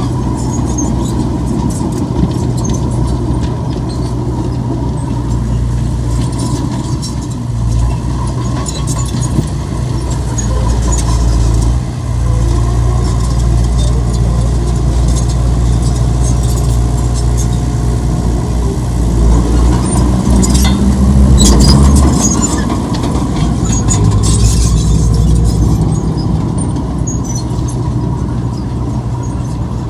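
Heavy earthmoving machinery's diesel engine running steadily under load, with high squeaks and clanks over it. The engine grows louder about two-thirds of the way through.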